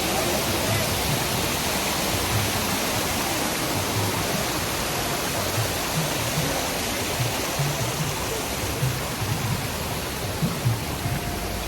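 Waterfall rushing close by: a steady, dense wash of falling water.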